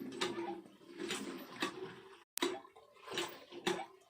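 Water splashing and sloshing in a bowl in short, irregular bursts as Indian gooseberries (amla) are washed, breaking off abruptly for a moment about halfway through.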